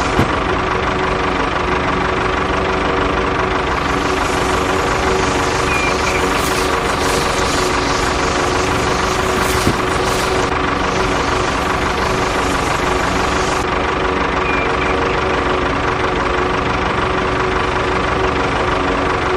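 A motor running steadily at one unchanging speed, a constant whine over a dense mechanical rattle.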